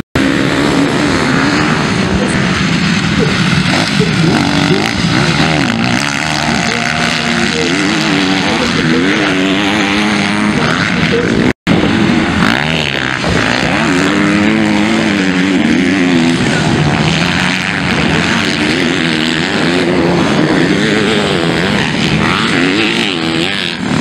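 MX2-class motocross bikes racing, their engines revving up and down repeatedly as the riders work the throttle through jumps and turns. The sound cuts out for an instant about halfway through.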